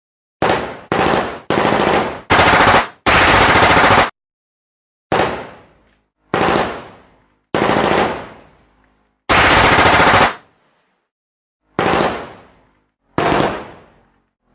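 Automatic gunfire in bursts: five quick bursts in the first few seconds, the last about a second long, then after a short pause a series of shorter bursts about every second and a half, each trailing off in an echo.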